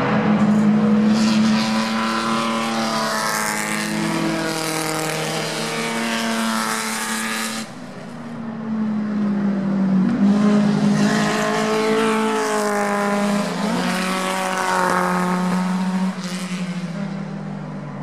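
Historic Grand Prix racing car engines running hard on the circuit, their pitch rising and falling as they accelerate and change gear, in two long waves with a brief lull about eight seconds in.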